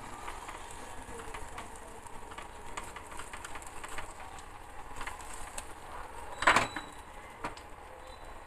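Semolina and vegetable batter cooking in oil in a nonstick pan, with a steel spoon scraping and spreading it and a faint crackling sizzle. A louder knock of utensil or pan about six and a half seconds in, and a smaller one a second later.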